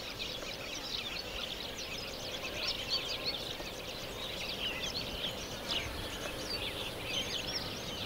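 A chorus of small birds singing and calling at once: many short, high chirps and trills overlapping, over a soft steady outdoor hiss.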